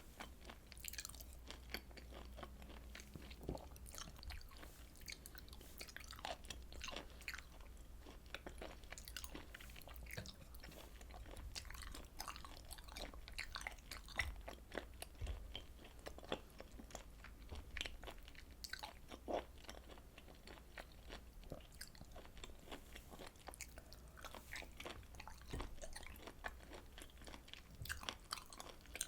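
Chewing and biting of grilled beef and pork intestines, a dense, irregular run of quick wet clicks and crunches over a faint low hum.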